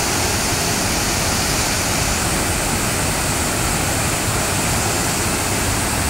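Gundichaghagi waterfall, a wide cascade of water crashing onto rocks and a churning pool, heard up close as a steady, unbroken rush.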